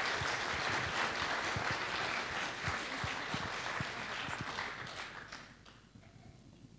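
Audience applauding, the clapping dying away about five to six seconds in.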